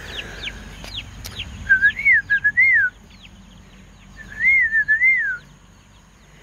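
A brood of young chicks peeping: many short falling peeps, with a louder warbling two-part whistle that rises and falls, heard twice.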